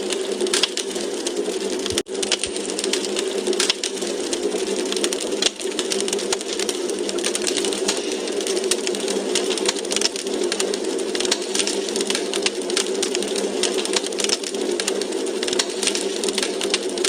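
Wood fire crackling in a fireplace: dense, irregular pops and snaps over a steady hiss, with a brief dropout about two seconds in.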